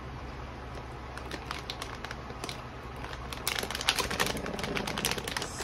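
Plastic retail bag holding a VGA cable crinkling and rustling as it is handled, in scattered light crackles that grow busier and louder about three and a half seconds in.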